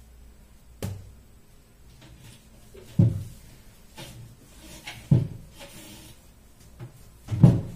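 Kitchen cupboard being emptied: four dull knocks of its door and of things being taken out and set down, about two seconds apart, the last the loudest.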